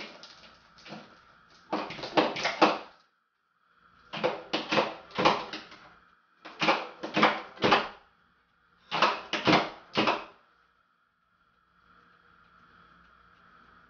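Tongs digging through a cooler of iced blue crabs, the ice and crab shells clattering in four bursts of rapid knocks and rattles, with a faint steady hum between them.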